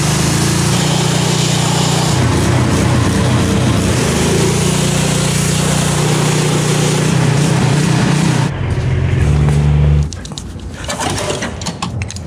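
Small gas engine of a Simpson pressure washer running steadily under the hiss of the high-pressure water jet blasting a rear axle housing. The spray stops about eight and a half seconds in while the engine keeps running, then the engine sound cuts off sharply and a few light clicks follow.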